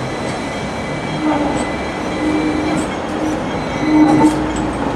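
Hong Kong double-decker electric tram rolling slowly past on a tight curve: a steady rumble of steel wheels on rail with a low hum that comes and goes.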